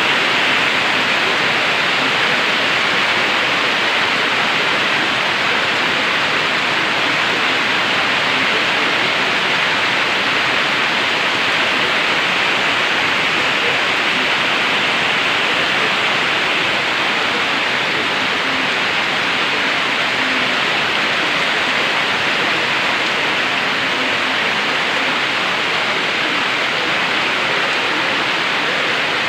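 Heavy rain from a tropical storm falling steadily: a dense, even hiss that does not let up.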